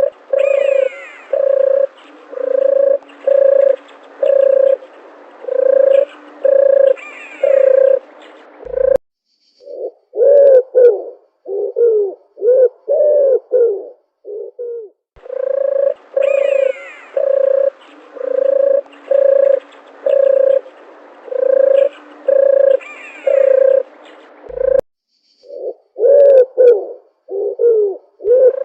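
Dove cooing: a long series of evenly spaced low coos, about one every 0.7 seconds, with fainter higher bird calls behind. Twice the sound cuts off abruptly and gives way to a few seconds of shorter, wavering coos before the steady series starts again.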